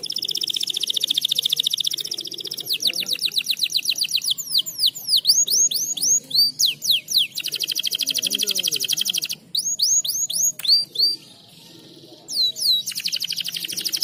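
Domestic canary singing a fast, loud song of rapid rolling trills and runs of quick down-slurred whistles: the song of a canary in breeding condition. It breaks off briefly near the end, then starts again.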